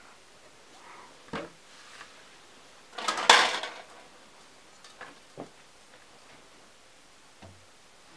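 Kitchenware being handled: a plastic basin shifted with a short clatter about three seconds in, and a few light knocks of a metal skimmer spoon against a metal cooking pot.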